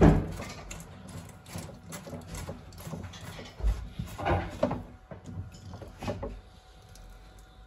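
Knocks and clunks of the plastic housing of an Adey Magnacleanse magnetic filter being handled and worked on by hand. There is a sharp knock at the start and a few more clunks about four and six seconds in.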